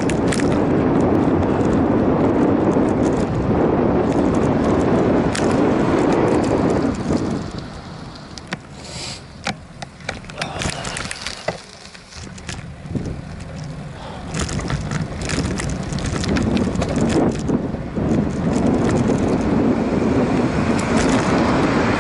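Wind rushing over the microphone of a camera on a moving bicycle, with clicks and rattles from the bike. The rushing drops away for several seconds in the middle, leaving the clicks more exposed, then comes back up.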